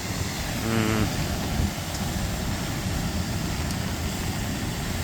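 Steady roar of a waterfall mixed with heavy rain, with wind buffeting the microphone in uneven low rumbles.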